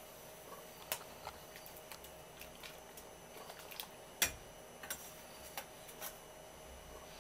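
Water heating in a metal pot toward a boil, with irregular small ticks and pops from bubbles over a faint hiss, and one louder knock about four seconds in.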